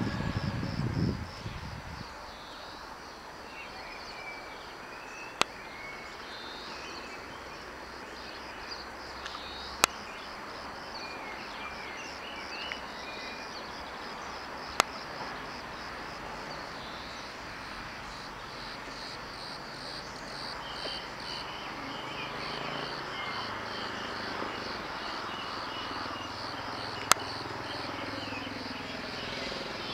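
The tail of a passing train fades away in the first second or two, leaving open-air ambience: birds chirping and insects chirping steadily. There are four sharp clicks, and a faint low rumble builds near the end.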